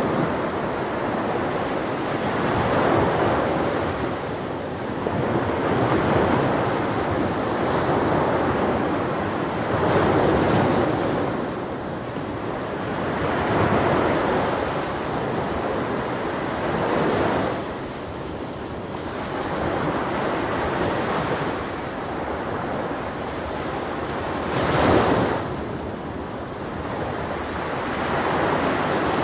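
Ocean surf breaking on a beach, swelling and falling back every few seconds, with one stronger crash about four seconds before the end. Wind runs under it.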